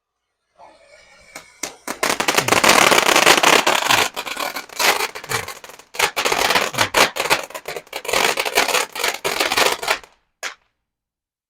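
Consumer firework going off. It starts with a faint hiss, then about two seconds in breaks into a loud, dense crackling that lasts about eight seconds, with a short lull midway. It ends with one last pop.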